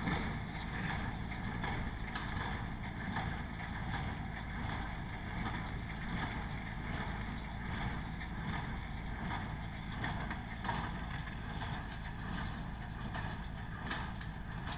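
Massey Ferguson 165 tractor running steadily while working an MF 128 square baler, with faint knocks from the baler mixed in.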